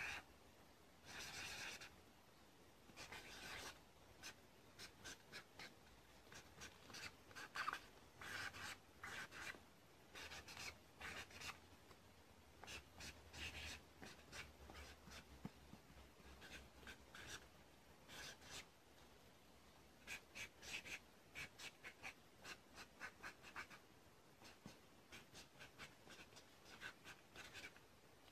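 Handwriting on paper: faint, irregular scratchy strokes of a pen, in quick runs with short pauses.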